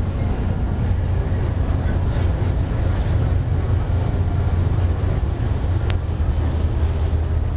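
Ferry's engine running steadily under way: a constant low drone with wind and water noise over it, and one brief click near the end.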